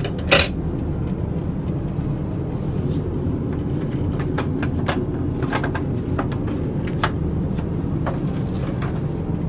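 Steady low roar of an airliner cabin in flight, heard inside the lavatory. It is broken by scattered light clicks and knocks of handling. The loudest is a clink just after the start as a glass perfume bottle is set into its metal holder, and softer knocks come a few seconds in from the wall-mounted paper dispenser.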